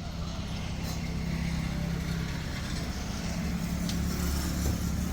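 A car's engine running with road noise: a steady low hum that grows a little louder after about a second.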